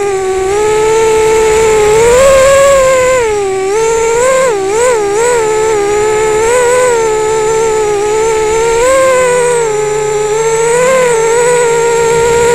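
Rooster 230 FPV drone's electric motors and propellers whining, heard through its onboard camera. The pitch rises and falls with the throttle, with a quick warble of pitch changes about four to five seconds in.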